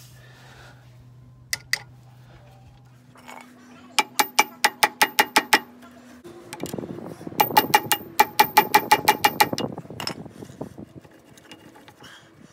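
Metal tool tapping on metal: two quick clicks, then two runs of rapid, ringing metal-on-metal taps, about five a second, the second run longer.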